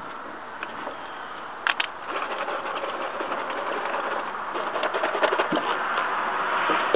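A lit firework fuse hissing and sputtering, with two sharper pops about a second and a half in, its crackle growing denser and louder toward the end.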